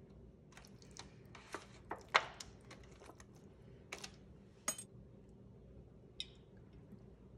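Scattered short clicks and crinkles from a disposable aluminium foil pan as raw chicken thighs in it are seasoned from a bottle and moved by hand. The loudest click comes about two seconds in, over a faint steady hum.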